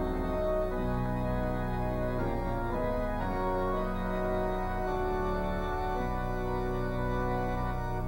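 Background music of held chords that change every second or so.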